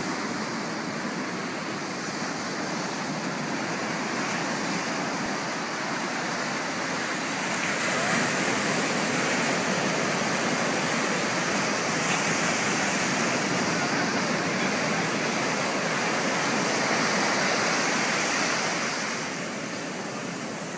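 Ocean surf washing onto a beach: a steady rush of breaking waves that swells louder about a third of the way in and eases off near the end.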